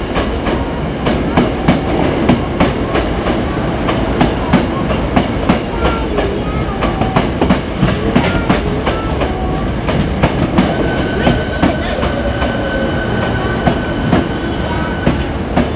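Hankyu electric train running through the station, its wheels clacking over rail joints and points in quick irregular clicks over a steady rumble. From about eleven seconds in, a steady high whine sounds for some four seconds.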